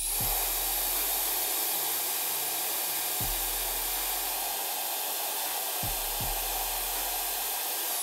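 JRL Forte Pro hair dryer blowing straight down onto the platform of a kitchen scale: a steady, even rush of air that cuts off at the end.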